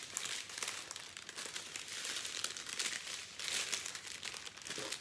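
Small plastic sachets of diamond-painting drills, joined in a strip, crinkling as they are folded up and handled with a clear plastic bag: a steady run of small crackles.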